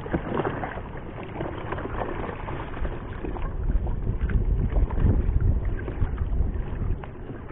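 Wind on the microphone and water lapping around a small wooden fishing boat, with the wind rumble gusting stronger about halfway through.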